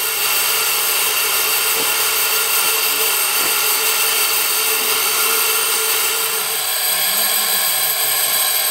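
China Railways C2 narrow-gauge steam locomotive hissing steadily and loudly as it releases steam.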